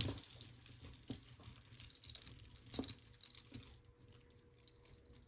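Small pieces of metal and glass costume jewelry, earrings and chains, clinking and rattling against each other as they are picked through by hand, with a few sharper knocks, the loudest right at the start.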